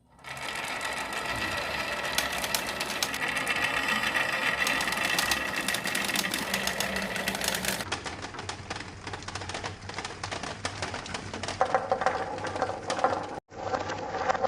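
Many marbles rolling and clattering along marble-run tracks in a rapid, continuous stream of clicks. The sound changes abruptly about eight seconds in and cuts out for a moment near the end.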